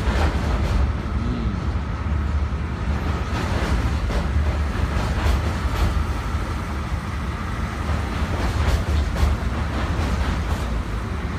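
A train running on the rails, with a steady heavy low rumble and scattered clicks from the wheels over the rail joints.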